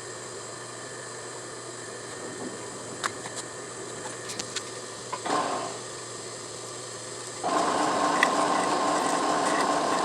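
Milling machine drilling a steel plate: a low steady machine background with a few light clicks, then about seven and a half seconds in the machine runs up to a louder, steady sound with a strong tone to it.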